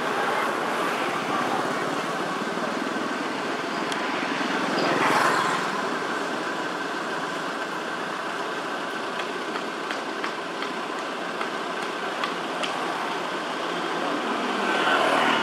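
Road traffic in the background: a steady wash of vehicle noise, swelling as a vehicle passes about five seconds in and again near the end.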